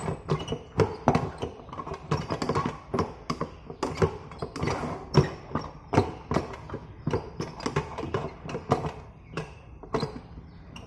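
A plastic rice paddle stirs and turns not-yet-fully-cooked yellow rice in a rice cooker's inner pot. The paddle makes irregular, quick taps and scrapes against the pot, several a second.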